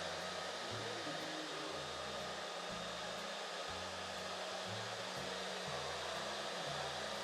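A 12-volt PTC heater's fan blows air in a steady rush, like a hair dryer, while its ceramic heating element runs hot.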